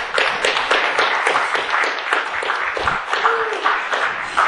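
Audience applauding, a dense run of many hands clapping.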